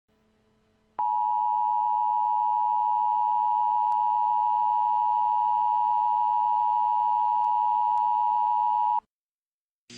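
Emergency alert attention tone: a loud, steady single-pitched beep at about 1 kHz. It starts about a second in, holds for about eight seconds and cuts off abruptly, signalling the broadcast tornado warning that follows.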